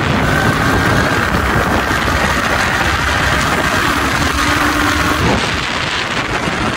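Motorcycle being ridden along, its engine running under a steady, loud rush of noise.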